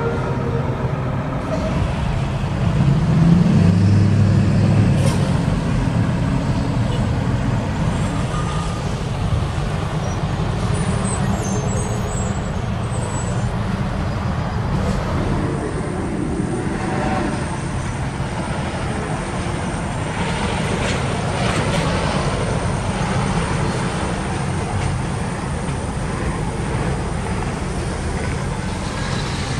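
Diesel semi-truck engines running and pulling through an intersection among passing road traffic. The engine rumble swells loudest about three seconds in.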